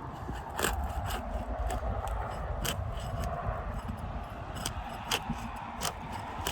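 Scraping and scattered light clicks of a tool working under asphalt roof shingles, with wind rumbling on the microphone.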